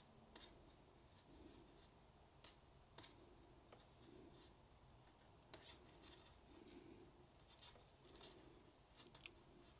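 Faint clicks and scratches of wooden knitting needles and yarn as stitches are cast on one by one, the small ticks coming more often in the second half.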